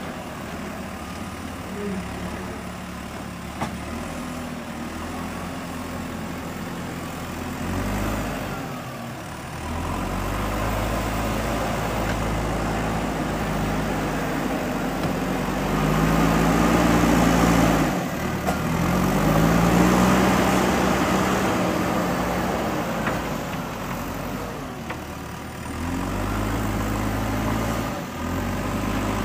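JCB 3DX backhoe loader's diesel engine running under load, revving up twice and dropping back about two-thirds of the way through as the machine works.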